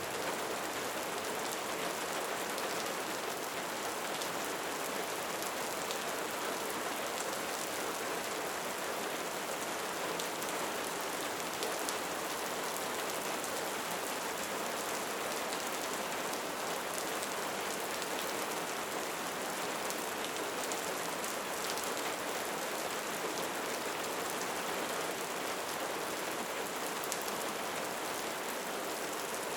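Steady rain falling: an even, unbroken hiss of many drops, with faint individual drips standing out now and then.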